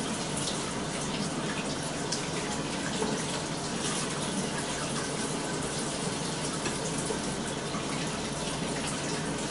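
Water running steadily from a kitchen tap.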